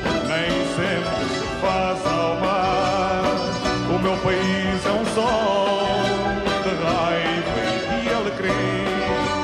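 Pop song music with no lyrics sung: an instrumental passage of the band's arrangement, a wavering melody line over a steady beat.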